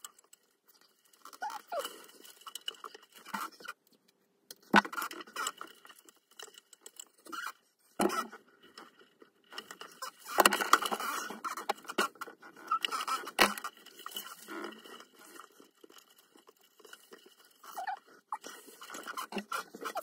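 A bundle of multicore alarm cables being handled and sorted by hand, the plastic-sheathed wires rustling and scraping against each other and the control panel in irregular bursts. A few sharp clicks of the wires or a tool knocking the panel stand out, and there is a longer run of rustling around the middle.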